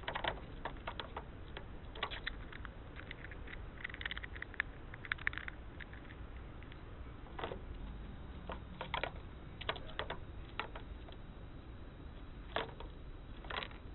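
Eurasian red squirrel handling and gnawing a walnut: irregular dry clicks and cracks, alone or in small clusters every second or two.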